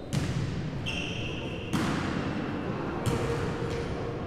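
Futnet ball bouncing on a sports-hall floor and being kicked during a rally.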